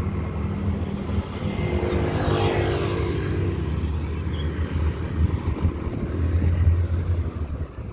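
Road traffic: a motor vehicle passes close by about two seconds in, its pitch falling as it goes, over a steady low rumble.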